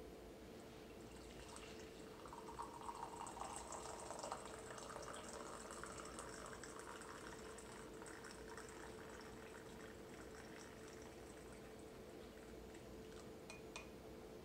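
Liquid poured from a stainless steel French press into a mug: a faint stream that starts about a second and a half in, is strongest over the next few seconds, then tapers off. A steady low hum runs underneath, and there are a couple of small clicks near the end.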